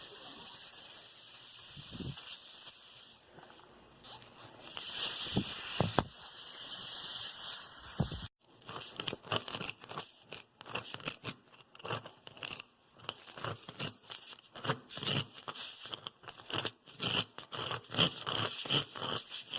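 Spiral reamer from a tire plug kit being worked into a screw puncture in a Michelin Primacy tire, rasping and scraping against the rubber. The scraping is sparse at first, then comes in quick, irregular strokes from about eight seconds in.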